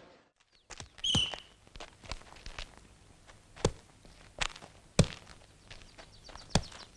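Volleyball play: a string of sharp slaps and thuds at uneven intervals, hands striking the ball. A short high chirp comes about a second in.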